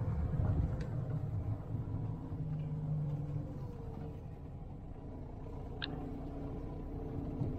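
Volkswagen Vento car moving slowly along a rough, narrow dirt track, a steady low rumble of engine and tyres.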